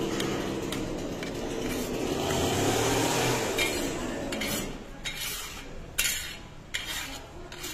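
A metal skimmer scraping and tapping against a cast-iron kazan as rice is pushed into a mound, with a few sharp clinks in the second half. A steady rushing noise fills the first half, then fades.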